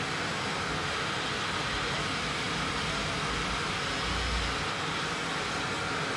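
Vacuum cleaner running steadily, its hose held at a cordless drill to suck up the dust from drilling into the wall. A brief low rumble comes about four seconds in.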